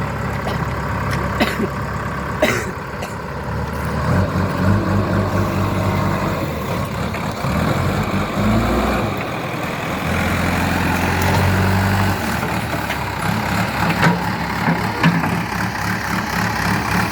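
JCB 3DX backhoe loader's Kirloskar diesel engine working, its note rising and falling as the machine takes load pushing a tree trunk. Two sharp knocks come in the first few seconds.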